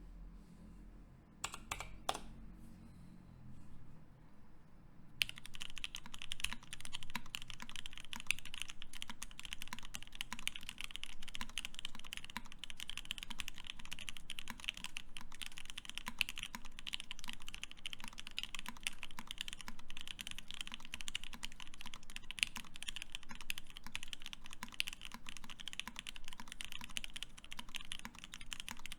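Keycult No.1/65 custom mechanical keyboard with lubed Tealios linear switches on an aluminium plate being typed on. A few separate keystrokes come first, then fast continuous typing from about five seconds in.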